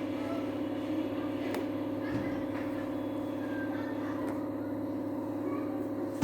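A steady low mechanical hum with a few faint handling knocks.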